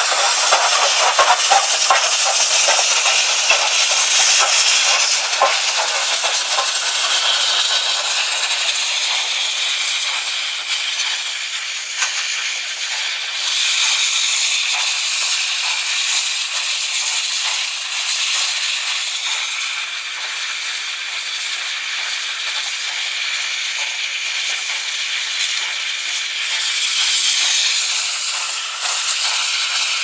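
A pair of Soviet steam locomotives passing close by under steam, with a steady loud hiss of steam. In the first few seconds there are quick, closely spaced beats from the exhaust and running gear.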